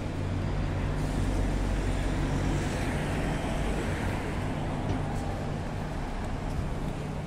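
City street traffic: a steady low hum of engines and road noise from passing vehicles, swelling somewhat in the middle as traffic goes by.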